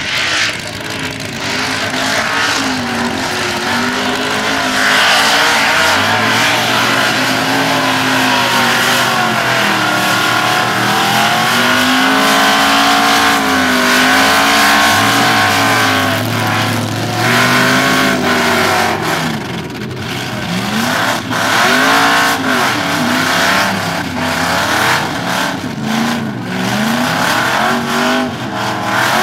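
Off-road 4x4 truck's engine revving hard while churning through a mud bog pit. Its pitch climbs and falls again and again as the throttle is worked and the wheels spin in the mud.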